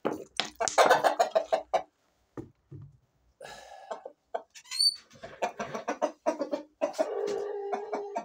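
Roosters clucking and calling in short bunches, with a longer held call near the end that cuts off suddenly.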